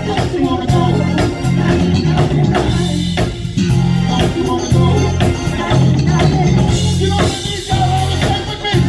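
Live band playing: drum kit, electric guitars and keyboards, with a loud electric bass line repeating short low notes.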